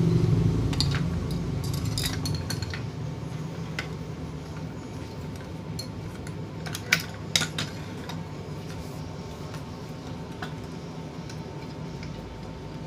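Small metal parts clinking and tapping while an electric fan's motor and shaft are worked on, with a few sharp clinks about seven seconds in. A low hum fades away over the first few seconds.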